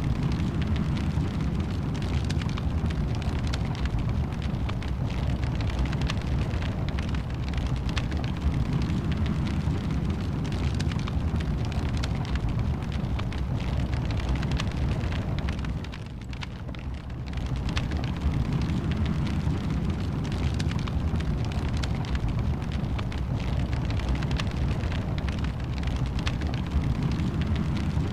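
Wood fire burning in a fireplace: a dense run of crackles and pops over a steady low rumble of flames, easing briefly about halfway through.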